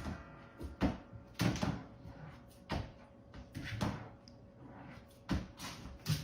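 Irregular light knocks and clatters, about eight spread unevenly, with faint room noise between them.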